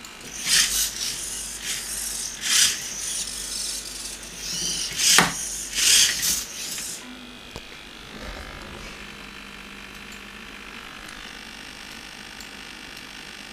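High-torque metal-geared hobby servos of a 5DOF robot arm whirring in a quick series of short bursts as the arm is driven fast. After about seven seconds they stop, leaving only a faint steady hum.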